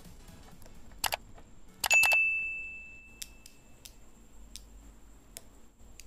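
Small steel magnetic balls clicking and clacking as they are pulled apart and snap together. A loud cluster of clacks about two seconds in leaves a high metallic ring that fades over about a second and a half, followed by a few softer single clicks.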